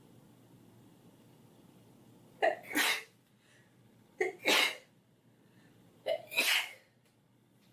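A girl sneezing three times in quick succession, starting about a third of the way in, roughly two seconds apart. Each sneeze is a short sharp catch of breath followed by a loud explosive burst, set off by pepper.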